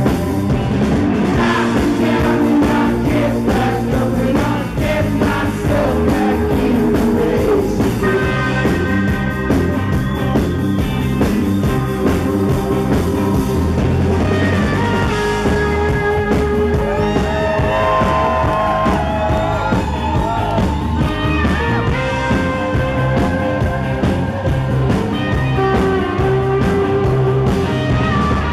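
Live rock band playing electric guitars, bass, keyboards and drums, loud and continuous. From about halfway through, a lead line of gliding, bending notes rises above the band.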